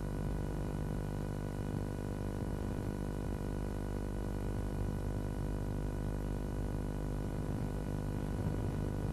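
A steady droning hum with many overtones, unchanging throughout, over a faint crackle.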